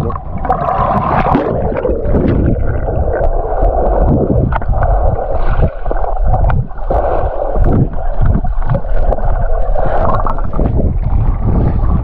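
Muffled gurgling and rumbling of seawater heard through an action camera held underwater while a swimmer dives and swims. There is brighter splashing near the start and again near the end as the camera goes under and comes back up.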